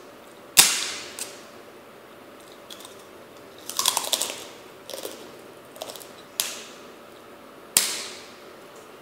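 Crisp snaps as pieces are broken off a giant kerupuk (Indonesian fried cracker), four sharp cracks, the loudest about half a second in. Between them, a burst of dry crunching a few seconds in as a piece is bitten and chewed.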